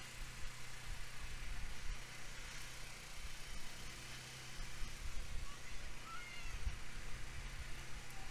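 Camera cart running along the course, giving a steady low hum with irregular low rumbles. A few faint short chirps come in about five and a half seconds in.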